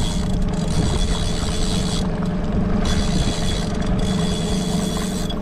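Boat motor running steadily while trolling, a constant low hum with a faint high whine that cuts out and comes back a couple of times.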